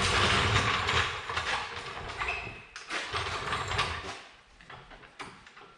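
Metal clattering and rattling from tools and bolts being worked on a skid steer bucket's cutting edge. It comes in two bursts, the first about a second and a half long and the second about three seconds in, then fades to a few light clicks.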